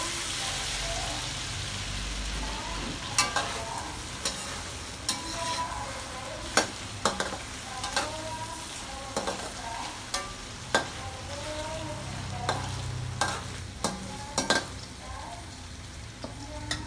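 Whole shrimp frying in butter and garlic in a stainless steel wok: a steady sizzle, with a metal spoon clinking and scraping against the pan about a dozen times as the shrimp are stirred.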